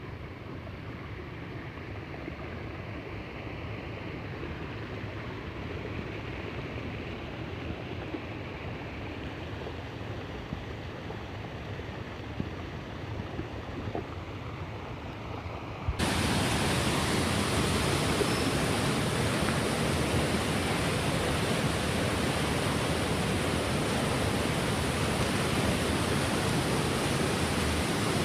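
Steady rush of water from a waterfall and stream. About halfway through it suddenly jumps louder and brighter, then holds steady.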